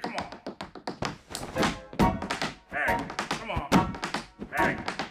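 Tap shoes striking a tabletop in a fast tap-dance solo: rapid sharp taps in uneven rhythmic runs, with heavier stamps among them.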